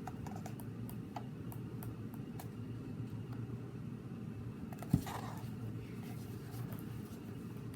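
Low steady room hum with faint scratches and clicks of handling, and one sharp thump about five seconds in.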